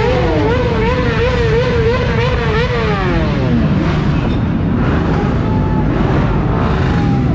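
Motorcycle engine revved hard near the top of its range, its pitch wavering up and down a few times a second, then falling away about three seconds in as the throttle is let off. Other idling motorcycles and crowd chatter carry on under it.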